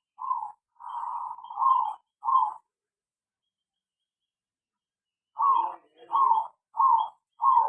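Zebra doves (perkutut) cooing: a few short staccato notes in the first two and a half seconds, then, after about three seconds of silence, a run of notes about every half second.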